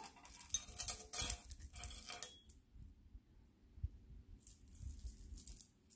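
Small pieces of costume jewelry clinking and rattling against each other as they are handled: a run of light, rapid clicks for about two seconds, a pause, then a few more clicks near the end.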